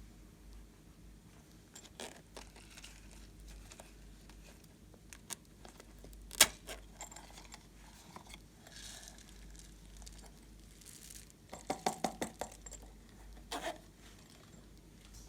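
Slime being squeezed and poked by hand, giving scattered clicks and crackles, with one louder pop about halfway through and a quick run of clicks near the end.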